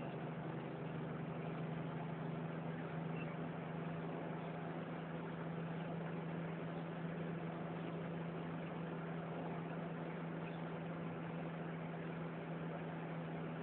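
Car cruising steadily, heard from inside the cabin: a constant engine hum over an even rush of road and wind noise, unchanging throughout.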